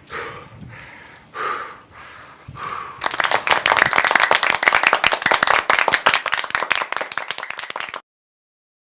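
A few short, breathy puffs, then a loud, dense crackle of rapid sharp clicks like clapping for about five seconds, which cuts off suddenly.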